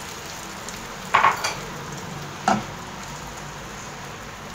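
Beaten egg sizzling steadily in hot oil in a frying pan, with a metal spoon knocking or scraping against the pan twice, about a second in and again at two and a half seconds.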